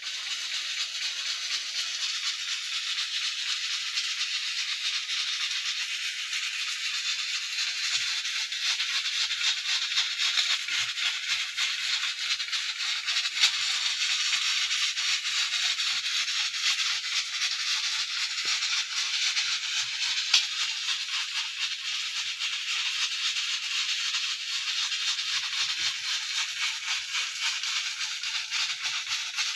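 Pressure cooker releasing steam: a steady hiss with a rapid rattle from the weight valve jiggling on the vent, the 'chok chok' of a cooker at full pressure.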